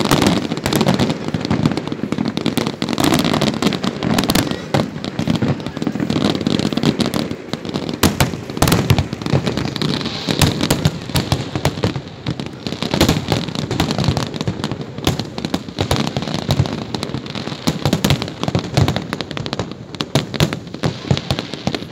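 Aerial firework shells bursting in a rapid, continuous run of sharp bangs, one after another with no pause.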